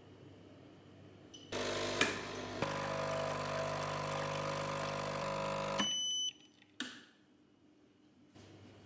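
A kitchen appliance's motor hums steadily for about four seconds, with a couple of clicks as it starts. It shuts off with a short electronic beep, and a click follows about a second later.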